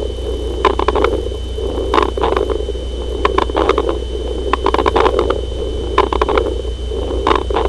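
Recorded lung sounds through a stethoscope: breath sounds under a steady hum, with clusters of short crackles (rales) returning about every second and a half, typical of acute pulmonary edema.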